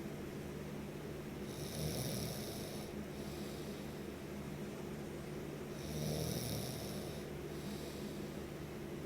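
Snoring in a slow, regular rhythm, with a louder breath about every four and a half seconds over a continuous low drone.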